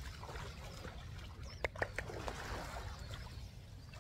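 Wind rumbling on the microphone over a calm sea, with faint splashing as a person wades into shallow water. Three sharp clicks come in quick succession about halfway through.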